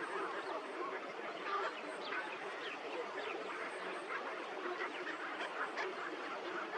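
A large mixed flock of waterbirds calling all at once: a dense, unbroken chorus of many short, overlapping harsh calls.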